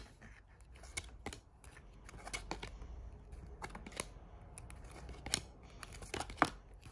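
A stack of trading cards leafed through by hand, each card slid off the front of the stack and tucked behind, giving irregular light clicks and snaps of card against card.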